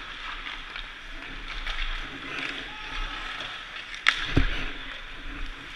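Ice hockey shot on goal: about four seconds in, the sharp crack of a stick striking a puck, then a moment later a dull thud as the puck hits the goaltender's gear. Behind it, steady indoor rink noise of many skate blades scraping the ice.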